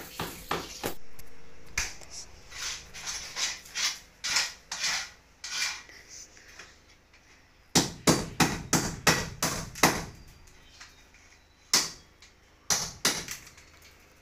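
Hammer blows on a masonry wall, knocking out a rough opening for an air conditioner: separate, irregular strikes with a quick run of blows about eight seconds in.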